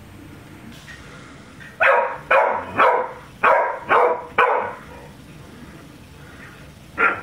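A dog barking at foil party balloons: a run of six loud barks about half a second apart, then a pause and one more bark near the end.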